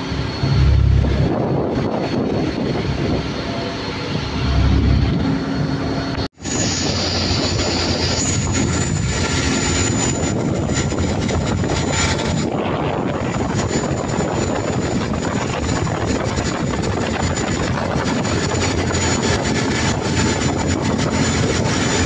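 Motor yacht running at speed: a steady engine drone under the rush of water and wind as the hull cuts through the waves. Low gusts of wind hit the microphone twice in the first five seconds, and the sound breaks off for an instant about six seconds in.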